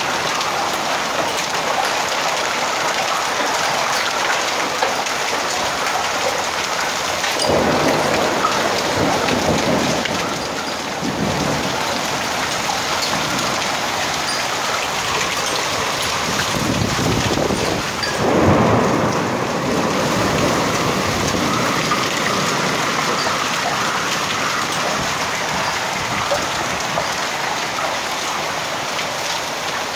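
Heavy rain and hail falling hard and steadily, with faint pattering hits of hailstones. Thunder rumbles twice: a roll starting about seven seconds in and another past the middle.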